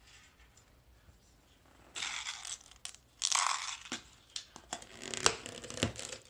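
Rustling, crinkling handling noise that starts about two seconds in, followed by a run of sharp clicks and knocks over the last few seconds.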